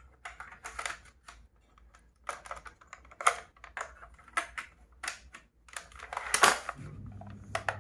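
Irregular plastic clicks and knocks of a toy gun being handled and worked, with a louder click about six and a half seconds in.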